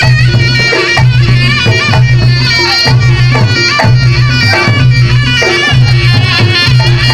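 Reog Ponorogo gamelan music: a slompret (reed shawm) plays a bending, wavering melody over low percussion that beats about once a second.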